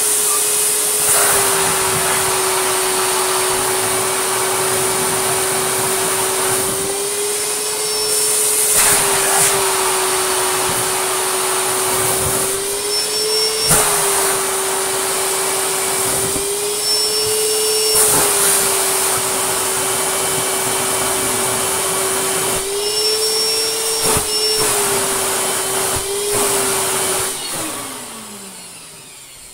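Goblin Aquavac 620 canister vacuum, fitted with a Vax motor, running loud with a steady whine while sucking shredded paper up its hose in repeated rushes, the whine rising slightly during some of them. Near the end the motor winds down.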